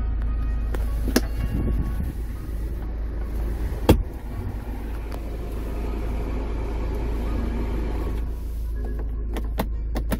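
Steady low rumble inside a car's cabin, with a sharp click about a second in and a louder one near four seconds, then a few lighter clicks near the end.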